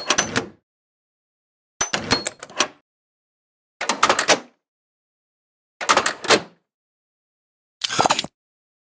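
Short mechanical clatters of clicking gears, five bursts about two seconds apart, each a rapid cluster of clicks lasting under a second, with silence between.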